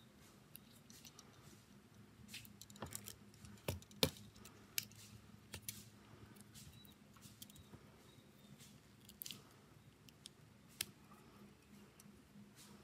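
Small, scattered clicks and taps from handling phone parts and small tools, the loudest a few knocks about four seconds in, over a faint steady hum.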